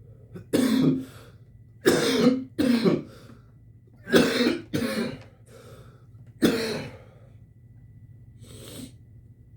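A man coughing in short fits: about six hard coughs in pairs, then a lighter cough near the end.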